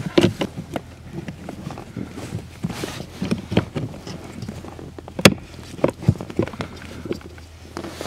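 Plastic cabin air filter cover of a Mercedes-Benz GLA 200 being worked into its housing under the dashboard by hand: a string of plastic clicks, knocks and rattles, with one sharp click about five seconds in.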